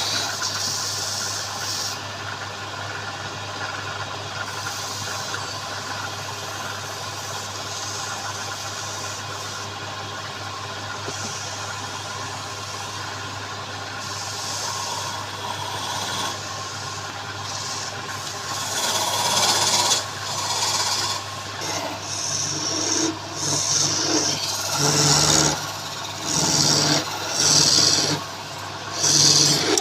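Wood lathe running with a steady motor hum while a turning tool scrapes against the spinning wood. About two-thirds of the way in, the cuts turn into louder, short repeated strokes, roughly one a second.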